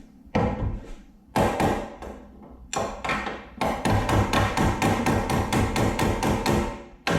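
Hammer striking metal: three separate blows, then a fast, steady run of blows at about five a second, with a brief break near the end.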